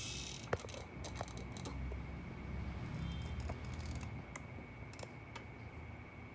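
Light handling noises: a brief rustle at the start and scattered small clicks and taps, the sharpest about half a second in, over a low rumble and a faint steady high-pitched whine.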